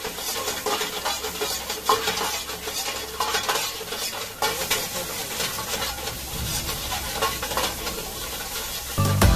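Vegetables sizzling in a steel wok over a gas burner while a metal ladle stirs them, scraping and clinking against the pan at irregular strokes.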